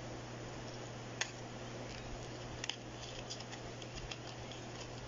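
Small kraft-cardboard perfume sample card being handled and opened by hand: faint scattered clicks and scrapes, the sharpest about a second in, over a steady low hum.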